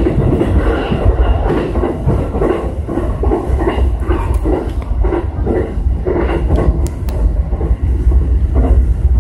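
E233-series electric train running at speed, heard from inside behind the cab: wheels on the rails with a low rumble and a regular clacking about twice a second, growing louder near the end as it crosses a steel truss bridge.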